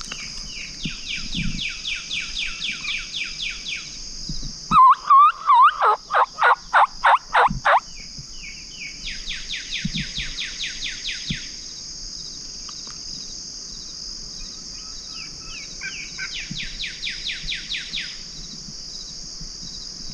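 Turkey mouth call run through a loud series of about eight yelps, each breaking from high to low, opened by a short warbling note. Behind it a steady high insect chorus, and a bird's trill that comes three times.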